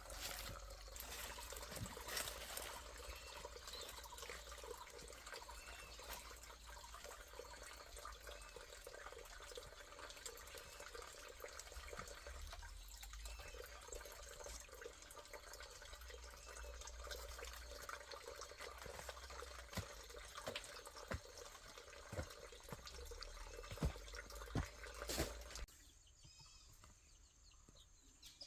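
Water trickling steadily, with scattered sharp knocks in the second half; the trickle stops suddenly shortly before the end.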